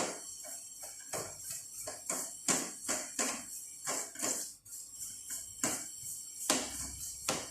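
Hands handling an opened MacBook Pro and its aluminium bottom case: a run of irregular light taps and rubs, about one or two a second.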